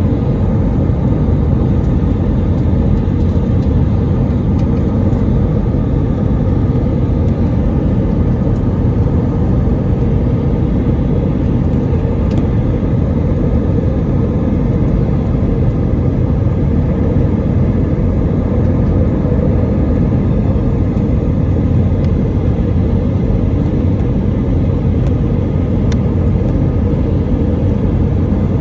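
Airbus A320 airliner making a steady low rumble that holds the same level throughout, with no distinct events.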